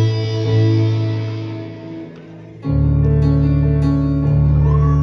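Guitar-led band music: held guitar chords ring and fade, then about two and a half seconds in the full band comes back in loud with a heavy bass.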